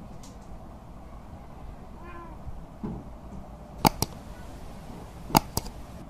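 A cat gives one short, faint meow about two seconds in, over a low steady hum. Two pairs of sharp clicks, the loudest sounds, come near four and near five and a half seconds in.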